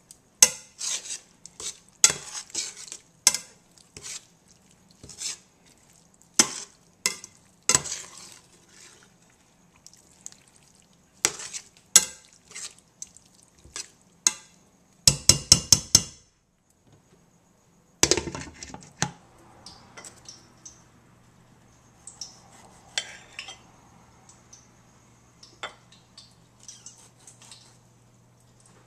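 Slotted metal spatula scraping and clanking against a stainless steel skillet as chunks of beef and chorizo are stirred, with a quick run of taps about fifteen seconds in. After a short pause the clatter gives way to quieter, sparse light clicks over a low steady hum.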